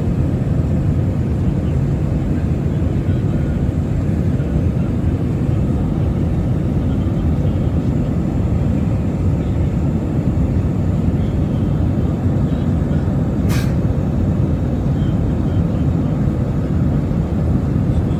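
Steady cabin noise inside a jet airliner on its landing approach: the engines and the rush of air heard through the fuselage as a loud, even low rumble. A single short click comes about thirteen and a half seconds in.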